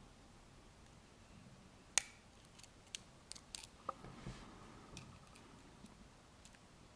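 Lock pick and tension wrench working the pins of a Master Lock No. 230 padlock: small sharp metallic clicks and ticks, one louder click about two seconds in, then a scatter of lighter ones.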